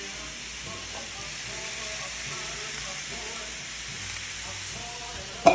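Sausage, avocado and tomato frying in a hot buttered skillet, with a steady sizzle.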